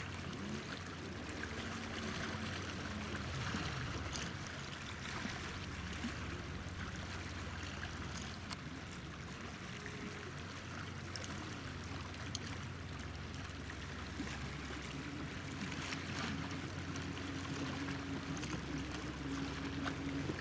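Seawater trickling and lapping among shore rocks, a steady wash of water noise with a few faint clicks, over a low steady hum.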